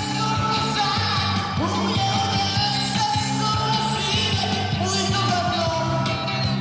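Rock band playing, with a singer holding long notes over the band.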